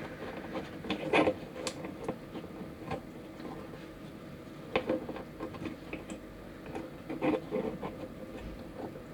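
Irregular light clicks and taps of hard plastic parts as a small plastic model figure is handled and its joints are moved, over a faint steady hum.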